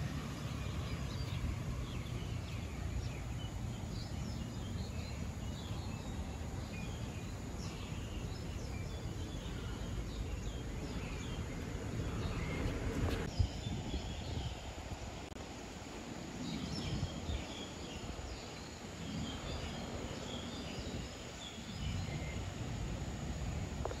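Small birds chirping on and off over a steady low outdoor rumble, with one sharp knock a little past halfway.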